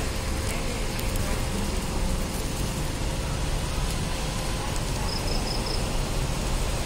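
Steady hiss and low rumble of a street-side pork-skewer grill stall, with four quick high beeps a little past five seconds in.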